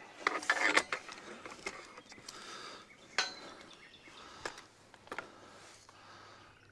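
Scattered light clicks and knocks, about half a dozen, over a faint outdoor background, with the loudest about three seconds in.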